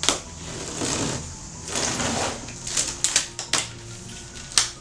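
Packing tape on a cardboard box being slit open with a set of keys, with scraping rasps, then cardboard flaps pulled apart with a run of sharp crackles and snaps from about three seconds in.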